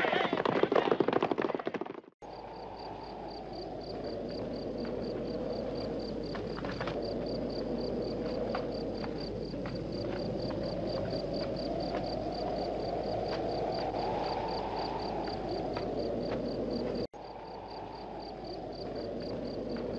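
Galloping horses and shouting from a film soundtrack cut off about two seconds in. Then an outdoor ambience follows: an even, rapid series of high insect chirps, typical of a cricket or bush-cricket, over a steady rushing noise that slowly swells and eases, with a brief dropout near the end.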